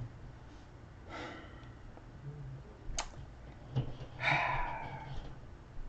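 A man breathing close to the microphone, with a sharp click about three seconds in and a louder breathy exhale a little after four seconds, over a steady low hum.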